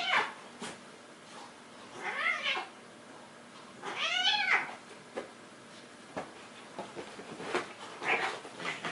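Domestic cats play-fighting: two drawn-out meows, a shorter one about two seconds in and a longer, louder one about four seconds in, amid scuffling on the bedding.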